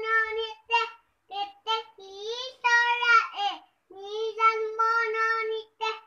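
A toddler girl singing a children's song unaccompanied, in short phrases with brief pauses between them.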